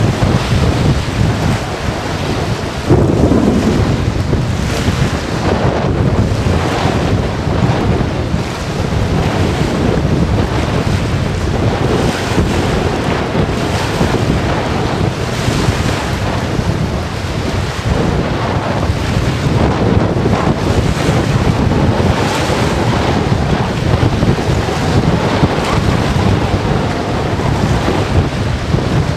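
Strong, gusty storm wind buffeting the microphone, a loud rushing roar that swells and eases, with a harder gust about three seconds in.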